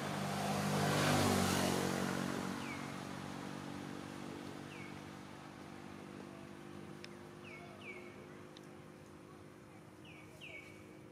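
A motor vehicle's engine passes close by, loudest about a second in and then fading away over several seconds. A bird gives short, falling chirps every second or two.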